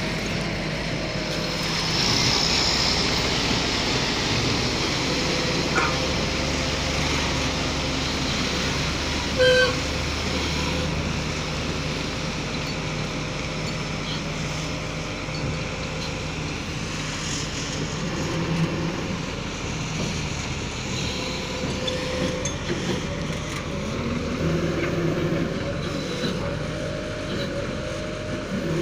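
Diesel engine of a Hitachi excavator-based pile-driving rig running steadily, rising and falling in pitch in places. There is a single brief sharp knock about nine and a half seconds in.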